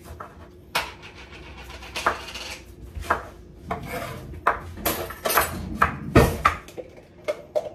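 Kitchen knife cutting tomatoes on a wooden cutting board: a string of irregular knocks of the blade on the board, with scraping between them.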